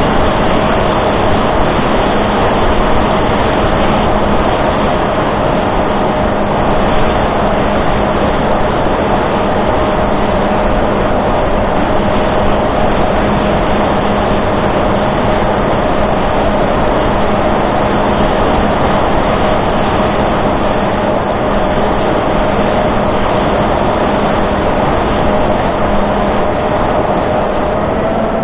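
Electric motor and propeller of a Reptile S800 flying wing, heard through its onboard camera's microphone under heavy wind rush: a loud, steady hum with a constant whine, rising slightly in pitch near the end as the throttle changes.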